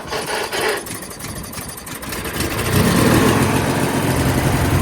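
1997 MTD Yard Machines riding mower engine being cranked by its electric starter, then catching about two and a half seconds in and settling into a steady run.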